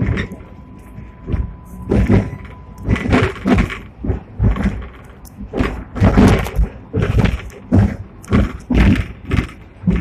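Hong Kong double-decker tram running on street track, its wheels and body giving an uneven series of loud knocks and rattles, about two a second, over a low rumble.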